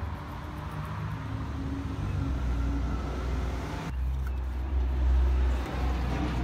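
Steady low rumble of road traffic, with a motor vehicle's engine hum in the first few seconds; the sound changes abruptly about four seconds in.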